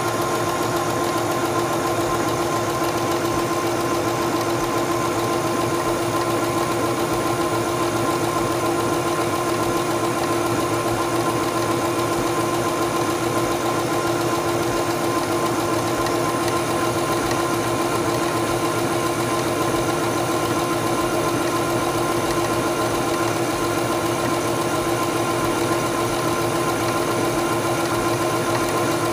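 Singer Stylist 7258 computerized sewing machine running at a steady speed while sewing a decorative feather stitch: an even motor hum with a rapid, regular clatter of the needle.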